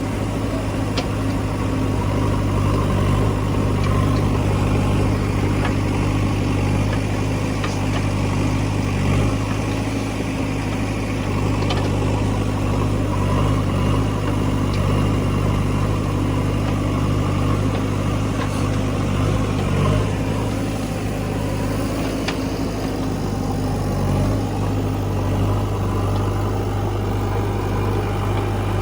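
Heavy diesel engine running steadily near idle, with a few faint clicks.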